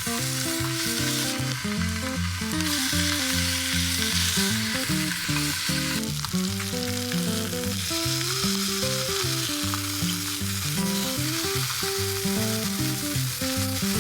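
Pork belly sizzling and frying in a pan, under background music with a melodic tune.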